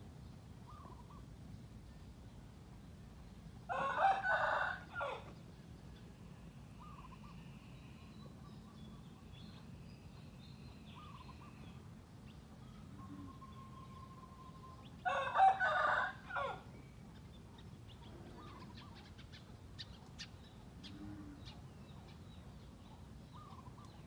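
Rooster crowing twice, about eleven seconds apart, each crow lasting about a second and a half.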